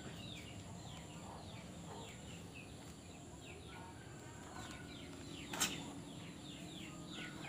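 Small birds chirping in a rapid, continuous run of short falling chirps, with a single sharp click about five and a half seconds in.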